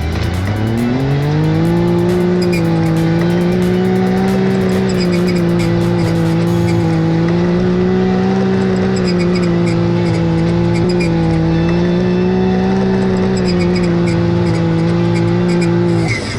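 Dune buggy engine revving up over the first second or two, then holding a steady high pitch with small dips. It cuts off suddenly near the end, with music underneath.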